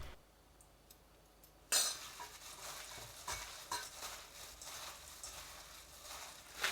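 Faint scraping, rustling and small clicks of food being handled in a bowl, starting after about a second and a half of near silence.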